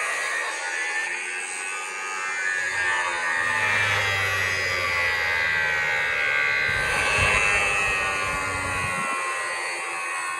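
An electric power tool running on steel with a steady high whine. A low hum joins about three seconds in and drops out near the end.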